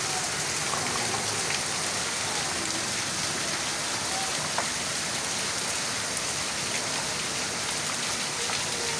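Steady rain falling: an even, unchanging hiss of rain on wet ground.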